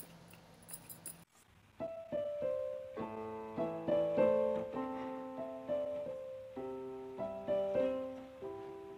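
Background piano music: a slow melody of separate notes starts about two seconds in, after a few faint clicks and a brief gap.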